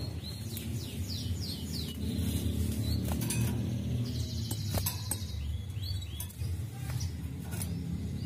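Sunbird singing a run of high, quick chirps and short sweeping notes, with a buzzy trill about four seconds in and a few sharp clicks between phrases, over a steady low hum.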